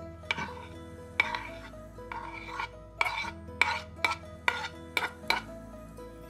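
A metal fork scraping shredded chicken off a wooden cutting board into a glazed bowl: a series of scrapes and sharp knocks that come quicker in the second half. Soft background music plays underneath.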